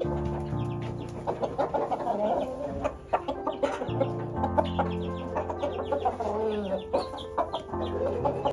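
Rooster clucking in many short, quick calls over background music of held chords.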